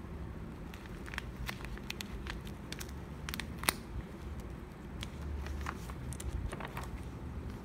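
Paper rustling and crinkling as fingers handle paper-doll cutouts and sheets, with scattered light ticks and one sharp tick a little before halfway.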